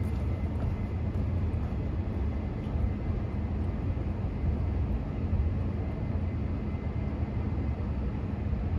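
Steady low rumble of city street ambience at night, the kind of background hum left by distant traffic.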